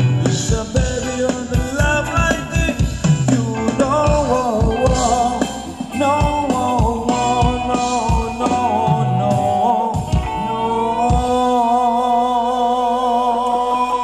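Live Thai ramwong band music: a steady drum beat under a wavering melody line. About ten seconds in the drums drop out, leaving long held notes.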